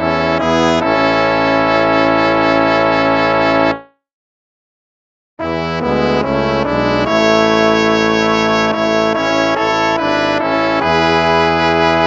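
Instrumental hymn music in slow, sustained chords. It stops about four seconds in, and after about a second and a half of silence another piece begins.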